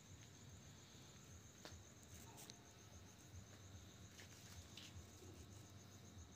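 Near silence with crickets chirping faintly and steadily in a fast pulsing trill, and a few faint clicks.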